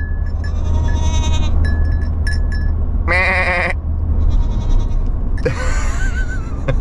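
Pet goat bleating inside a moving truck: one loud, wavering bleat about three seconds in, with fainter calls either side, over the steady low hum of the truck.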